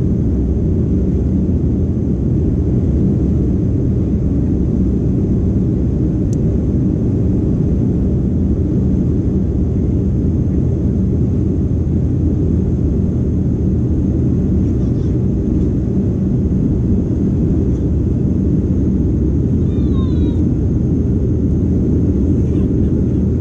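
Steady, unbroken cabin rumble of a Boeing 737 in flight: engine and airflow noise heard from inside the cabin at a window seat over the wing.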